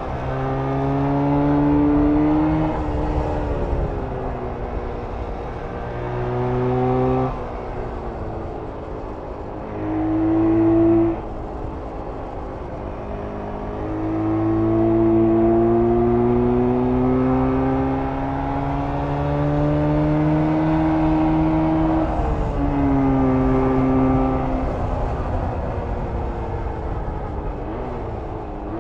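1994 Jawa 350 type 638 two-stroke twin engine pulling as the motorcycle is ridden, its pitch climbing with the revs and dropping sharply several times as the throttle is shut or a gear is changed. One long climb in the middle, then the engine note falls away near the end.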